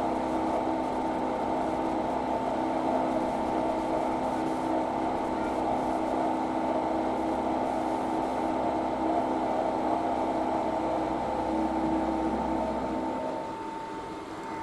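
Milling machine running a climb-milling finishing pass on aluminum plate: a steady machine drone with several held tones. About thirteen seconds in the cut ends and the sound drops to a quieter steady running.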